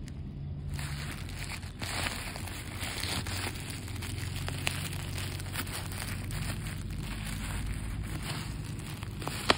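Black plastic mailer bag of a parcel crinkling and rustling as hands grip and pull at it, with one sharp snap near the end.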